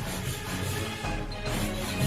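Background music with a steady beat and a few sharp percussive hits.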